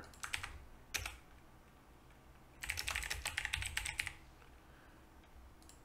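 Typing on a computer keyboard: a few scattered keystrokes in the first second, then a quick run of keystrokes lasting about a second and a half.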